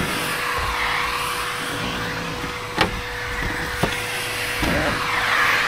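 Vacuum cleaner running through a long extension hose, its brush nozzle sucking dust off an RV rooftop air conditioner's coils; the rush of air swells and fades, with two sharp knocks about three and four seconds in.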